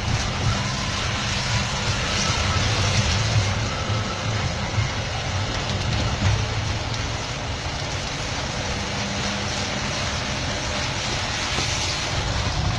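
Vehicle engine and road noise heard from inside the cabin while driving: a steady low drone with an even hiss above it.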